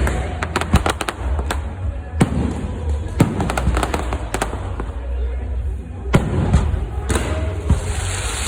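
Fireworks going off: irregular sharp bangs and crackles in quick succession, some close together in clusters.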